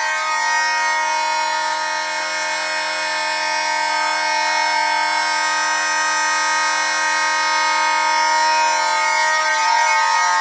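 Simplex and Spectronics 450 fire alarm horns sounding together, loud and continuous with no pulsing, several pitches at once: the fire alarm system in full alarm, set off by a smoke detector.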